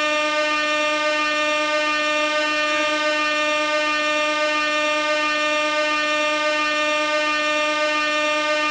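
Compressed-gas air horn sounding one continuous, unchanging blast: a single steady tone rich in overtones.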